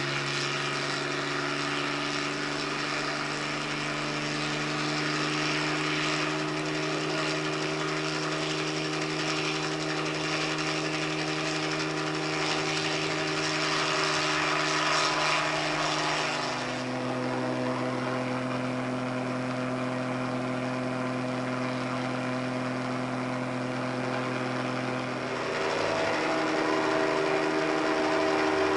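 Small helicopter's engine and rotor running steadily with a whine of several steady tones; the pitch steps down about two-thirds of the way through and shifts again near the end.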